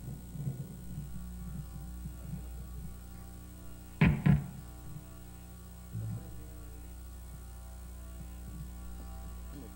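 Steady electrical mains hum from a stage band's live amplifiers, with two sharp thumps close together about four seconds in and a shorter, lower thud about two seconds later.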